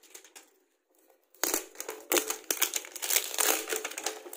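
Plastic shrink-wrap film crinkling as it is torn and peeled off a cardboard cube box, starting about a second and a half in.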